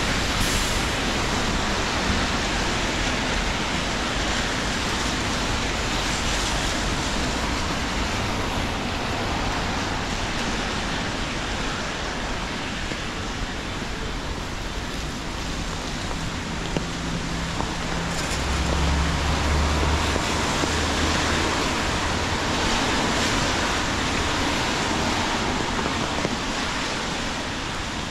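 Steady hiss of rain falling, mixed with city traffic. About two-thirds of the way through, a passing vehicle's low engine hum grows louder and then fades.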